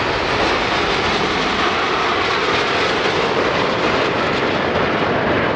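Jet noise from several Aermacchi MB-339 jet trainers, each powered by a single turbojet, flying past as the formation crosses in a bomb-burst manoeuvre. The noise is loud and steady throughout.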